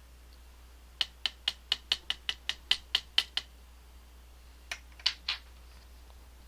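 A quick run of about a dozen light clicks, roughly five a second, then three more a second or so later, from tools and small parts of a gutted EVVA ICS lock being handled as its drivers and springs are worked out.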